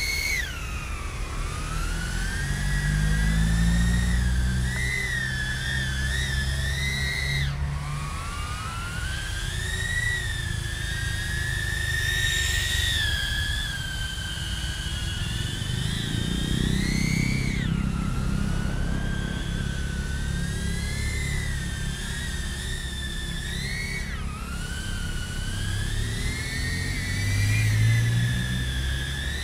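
DJI Avata FPV drone's propellers whining in flight, the pitch rising and falling with throttle, over a low wind rumble. The whine drops sharply four times as the throttle is chopped to roll into split-S dives.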